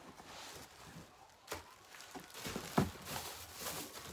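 Handling noise from packing: cardboard box flaps and plastic wrapping rustling, with a few knocks, the loudest about three seconds in.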